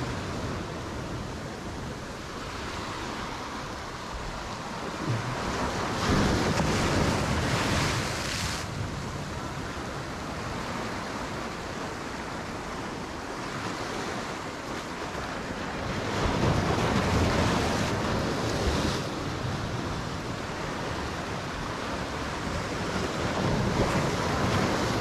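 Sea waves breaking and washing over the rocks of a breakwater. The surf swells louder three times, each surge lasting two or three seconds.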